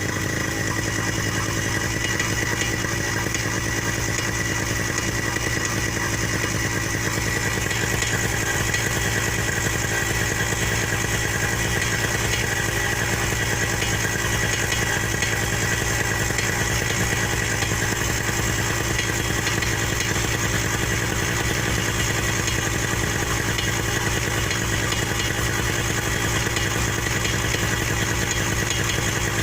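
Engine idling steadily with a fast, continuous knocking and a thin steady high whine. The knock is taken for a worn overrunning (one-way) clutch.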